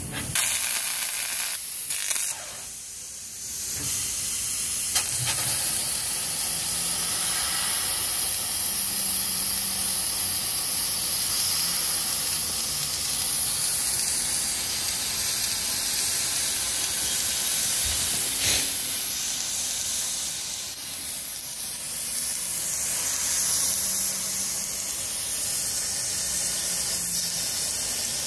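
3000 W fiber laser cutting machine cutting steel plate: a steady hiss from the gas jet at the cutting head, which drops briefly about two seconds in.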